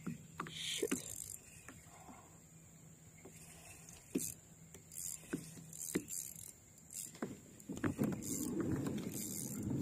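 Spinning reel and rod being worked while fighting a hooked fish: faint, scattered clicks and ticks. A low rushing noise comes in about eight seconds in.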